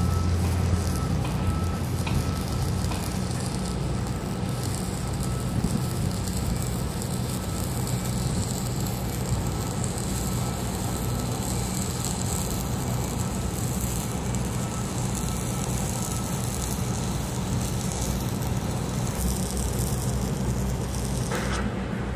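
Steady construction-site noise: a heavy machine's engine running with a low, even hum, under wind noise on the microphone.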